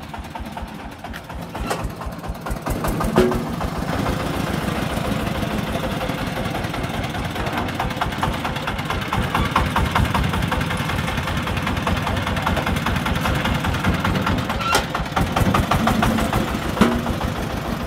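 Single-cylinder diesel engine of a homemade three-wheeled công nông farm truck chugging with a rapid, steady firing beat. It grows louder over the first few seconds as the truck comes close, with a few sharp knocks along the way.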